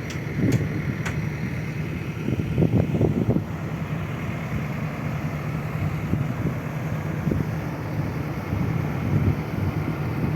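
Engine running steadily at a low, even hum, with a couple of sharp clicks in the first second and gusts of wind buffeting the microphone.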